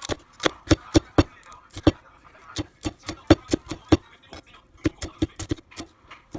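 Knife chopping on a cutting board: a quick, uneven run of sharp knocks, about three a second, with short pauses.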